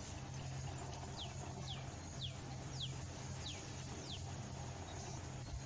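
A small bird calling: six short, thin whistles, each falling in pitch, about two a second, over a steady low hum.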